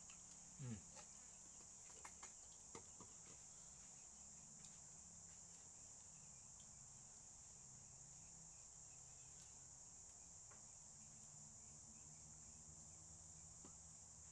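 Near silence with a faint, steady high-pitched insect chorus. A brief falling squeak comes just under a second in, and a few soft clicks follow over the next couple of seconds.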